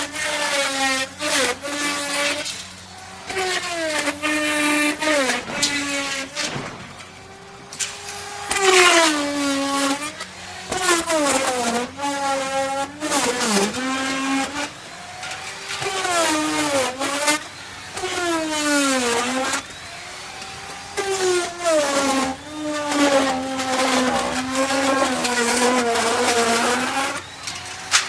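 Chainsaw cutting wood, the engine revving up again and again and its pitch sagging and recovering as the chain bites into the wood and lets off, with short dips in between.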